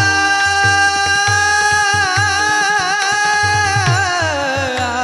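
Marathi kirtan singing: a voice holds one long note with some waver, then slides down near the end, over the clash of small brass hand cymbals (tal) and a drum beating steadily.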